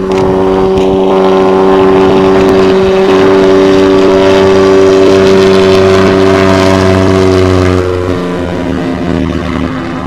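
Engine and propeller of an LN-3 Seagull amphibian ultralight running at high power during a high-speed taxi on water, a steady, loud drone. About eight seconds in it gets quieter and its pitch shifts.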